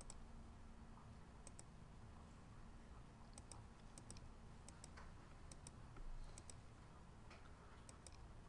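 Near silence: faint room tone with a low steady hum and scattered faint light clicks, several coming in quick pairs.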